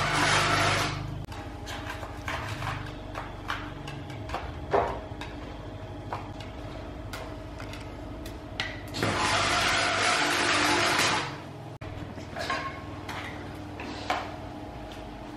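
Workshop sounds: a loud steady noise that stops about a second in and comes back for about two seconds just after the middle, with scattered clicks and knocks of handling and tool work in between.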